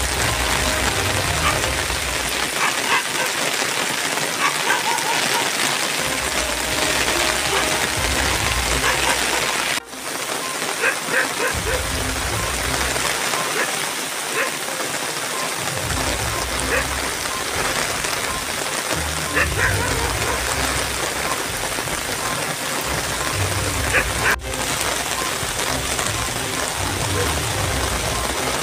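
Steady rain falling on a waterlogged paddy field, an even hiss, with a low rumble coming and going underneath. The sound cuts out briefly twice.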